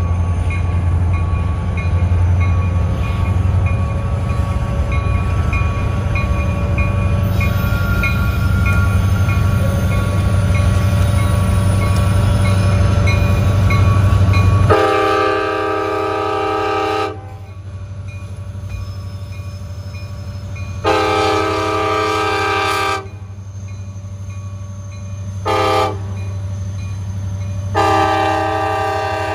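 A freight train's diesel locomotives rumble heavily as they approach. The lead locomotive's multi-chime air horn then sounds the grade-crossing signal: two long blasts, one short blast, and a final long blast starting near the end.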